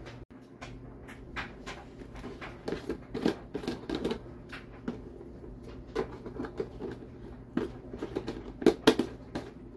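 Orange plastic screw lid being twisted on and off a clear plastic jar of wrapped peanut butter cups, with irregular clicks, taps and rustling from the jar, the lid and its contents. A few louder knocks come near the end.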